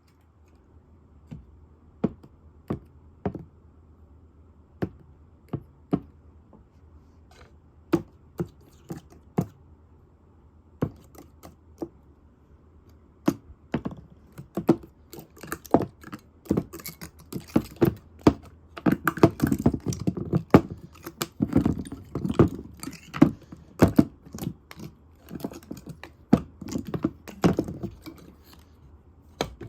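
Irregular sharp clicks and taps, a second or two apart at first, then coming fast and dense from about halfway, with duller thumps mixed in, like hard small objects tapping and scrabbling on a hard surface.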